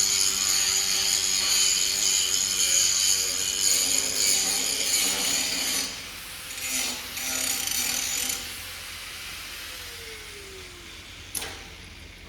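5-inch angle grinder grinding the torch-cut edge of a metal plate, a loud, high grinding noise for about six seconds, then a shorter second pass. Near the end the grinder winds down with a falling whine, and there is one sharp knock.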